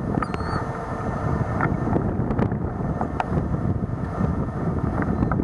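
Wind blowing over the microphone in a steady rush, with a few faint high chirps.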